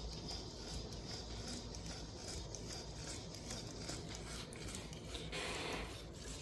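Small servo motors of an Emo desktop robot whirring faintly, with many light clicks and ticks as it steps down off its charging station and walks, and a brief louder whir about five seconds in.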